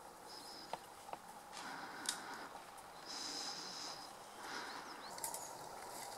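Faint outdoor ambience with rustling in brush and a few sharp clicks.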